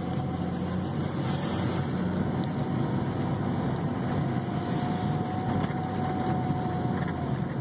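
A car driving, heard from inside the cabin: a steady engine hum and tyre noise, with a faint steady whine that stops near the end.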